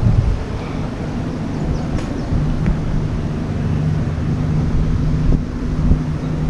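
Boat motor running steadily at low speed, a constant low hum, with wind buffeting the microphone.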